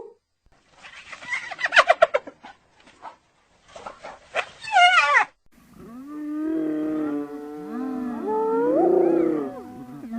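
Hyena calls made as sound effects for the extinct cave hyena. Two short bursts of rapid pulses come first, the second ending in quick rising notes. From about halfway, a long drawn-out call follows whose pitch swoops up and down near the end.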